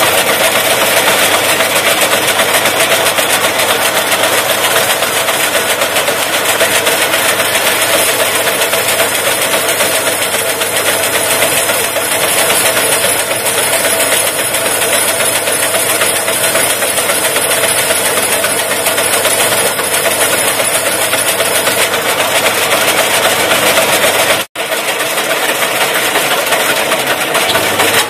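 Bandsaw running while a hand-held steel lathe tool bit is pressed against its moving blade to slit it lengthwise, a loud, steady metal-on-metal grinding scrape. The sound drops out for an instant near the end.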